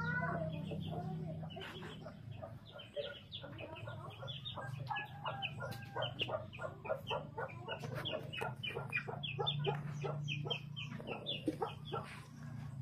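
Chickens clucking in quick, short repeated calls, several a second, over a low steady hum.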